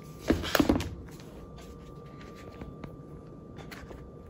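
A brief cluster of handling knocks and rustles from the MacBook Air and its packaging about half a second in, then quiet room tone with a few faint ticks.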